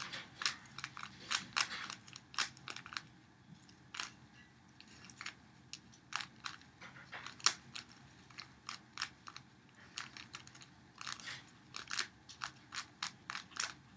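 Plastic 3x3 Rubik's Cube being turned by hand: quick, irregular clicks of the layers snapping round, often several a second, as the final moves of a solve.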